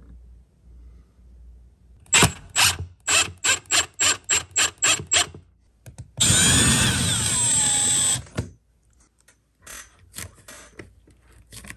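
Cordless drill fitted with a countersink bit, cutting a countersink into a hangboard's screw hole. It starts as a rapid series of short trigger pulses, about four a second, then runs steadily for about two seconds and winds down. Near the end come a few shorter, fainter spurts of a power driver sinking a screw into the board.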